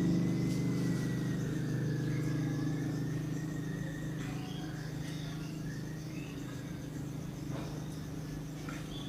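Faint bird chirps and a thin wavering high note over a low steady hum that slowly fades away.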